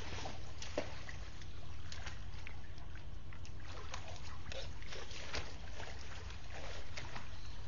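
Water sloshing and splashing as a crowd of alligators shifts about in a shallow pool, with scattered short knocks and clicks.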